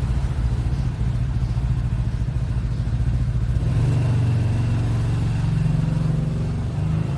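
An engine running with a steady, low rumble that rises a little in pitch about four seconds in.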